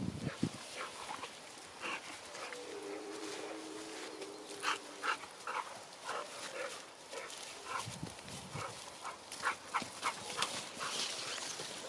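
A dog running and playing on grass, with a string of short, sharp sounds. About three seconds in, a steady droning tone holds for about two seconds.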